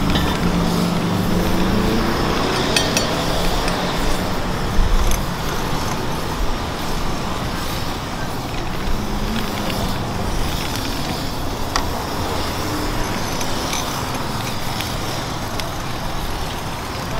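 Steady roadside traffic noise of passing vehicles, with a few short light clinks now and then.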